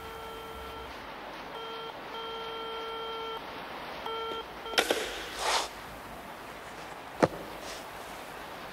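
An electronic beep tone sounds on and off in uneven lengths for about four and a half seconds. Then come a couple of knocks, a short swish, and a single sharp click.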